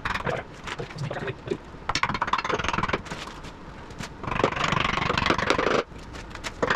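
Metal scraping and clinking, with scattered knocks, then a louder rasping stretch of about a second and a half past the middle that cuts off suddenly.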